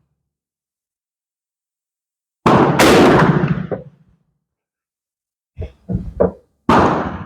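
Two loud gunshot reports, about four seconds apart, each dying away over about a second, with a quick run of smaller knocks just before the second.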